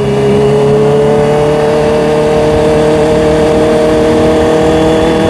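Honda CBR650R's inline-four engine running on the road, its pitch rising slowly and steadily as the bike gains speed.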